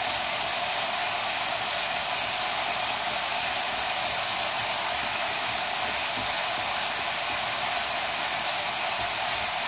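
Pork tenderloin searing in a hot frying pan, sizzling steadily.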